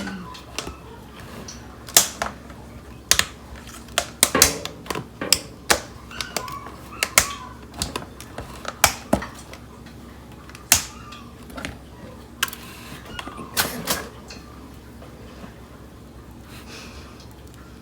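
Irregular clicks, taps and knocks of kitchen items being handled, about a dozen sharp ones scattered at uneven intervals.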